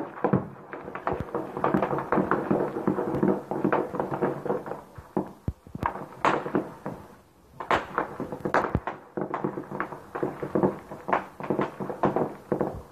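Sustained small-arms fire in a firefight: assault rifles shooting rapid strings of shots with no let-up, with a few sharper, louder shots standing out around six to nine seconds in.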